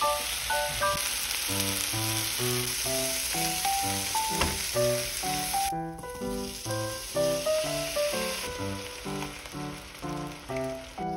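Onion frying in butter and garlic in a frying pan, a steady sizzle while a spatula stirs. About halfway through the sizzle drops off sharply as chopped tomatoes go into the pan. Light background music with plucked notes plays throughout.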